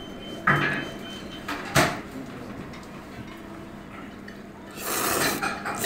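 Tableware knocking twice, a utensil against a dish, with a brief hissing rush near the end.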